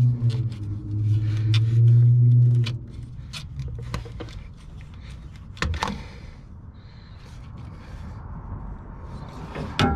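Clicks and scrapes of hard plastic as the EVAP canister's vent solenoid and its wiring connector are worked by hand, with one sharper knock near the middle. A steady low hum runs under the first two and a half seconds and is the loudest sound there.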